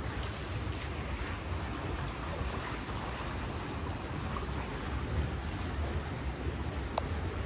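Wind rumbling on the microphone over a steady wash of sea surf, with one short sharp click about seven seconds in.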